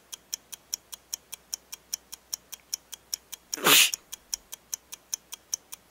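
A clock ticking quickly and evenly, about five ticks a second. A little past halfway there is one short, loud sneeze-like burst of breath from a person.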